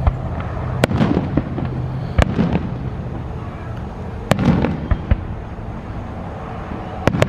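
Aerial fireworks bursting overhead: five sharp bangs, roughly every two seconds, with two in quick succession near the end. Each is followed by a crackling, echoing tail.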